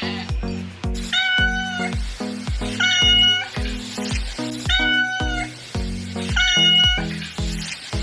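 A domestic cat meows four times, one call about every two seconds. Background music with a steady beat runs underneath.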